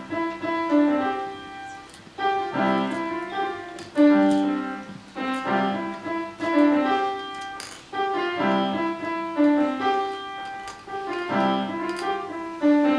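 Background piano music: a slow piece of struck notes and chords, in phrases that start every second or two and fade between them.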